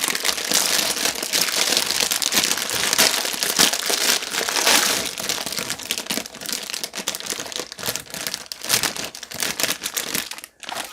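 Packaging being handled: a dense run of crinkling and rustling that thins to scattered crackles in the last few seconds.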